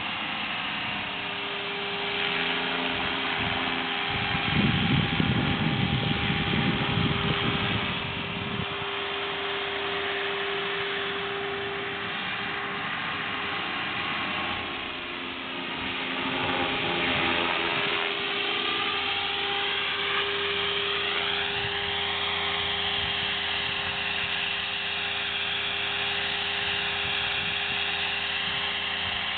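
Align T-Rex 500 ESP electric RC helicopter in flight: the brushless motor and rotor blades give a steady whine and whir whose pitch bends as the helicopter moves about. A heavier low rumble joins in about four seconds in and fades out around eight seconds.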